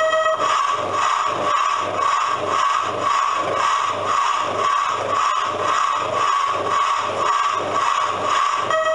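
Coin-operated steam-engine kiddie ride playing its recorded steam locomotive sound effect: a steady quick chuffing rhythm, with a steam whistle blast that cuts off just after the start and another that begins near the end.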